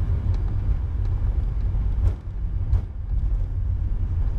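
Heavy, steady low rumble of an Airbus A340-300 rolling fast down the runway on its landing rollout, heard inside the flight deck. Two short clicks come about two seconds and near three seconds in.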